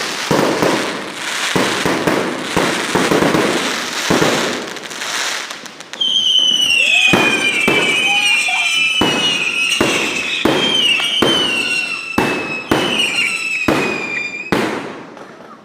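Fireworks and firecrackers going off: a dense run of bangs and crackling for about six seconds. Then a long high whistle, wavering and slowly falling in pitch, lasts about eight seconds while single bangs keep going off.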